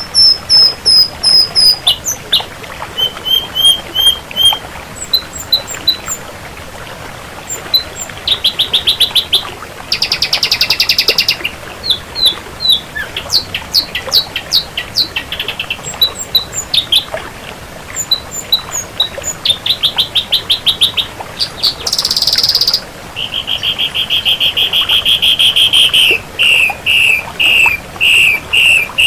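Ashy drongo singing a varied, loud song: series of short repeated whistled notes, rapid trills, and a couple of harsh buzzy bursts.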